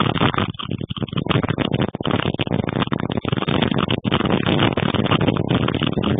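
Strong storm wind buffeting the microphone: a loud, rough rushing noise that cuts out briefly again and again.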